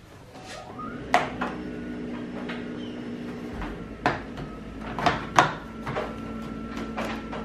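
Plastic engine-bay air intake ducting and its clips being handled and worked loose: several sharp clicks and knocks at irregular intervals, the loudest about a second in and two close together around five seconds in, over a steady hum.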